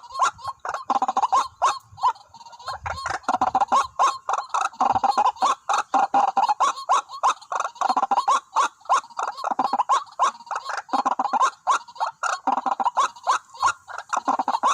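White-breasted waterhens calling: a dense, unbroken run of repeated clucking notes, several a second. A brief low rumble comes about three seconds in.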